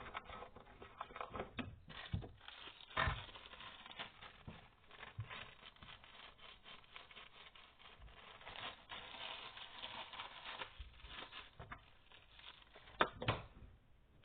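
Homemade borax slime being picked up and worked by hand: a dense run of small irregular sticky clicks and rustles, with a louder knock about three seconds in and another near the end.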